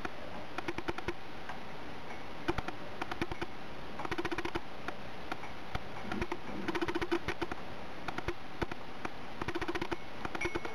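A tabby cat lapping water from a ceramic mug: runs of quick wet clicks from its tongue, several a second, broken by short pauses.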